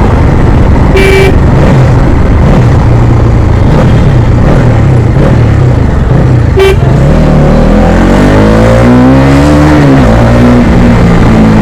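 Heavy wind noise on the microphone over a Bajaj Dominar 250 motorcycle's single-cylinder engine, whose note climbs and then settles in the second half. Two short vehicle-horn beeps, about a second in and just past the middle.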